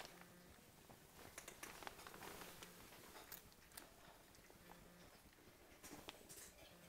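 Faint crunching of a cat chewing dry kibble from a metal bowl, with small irregular crunches scattered throughout.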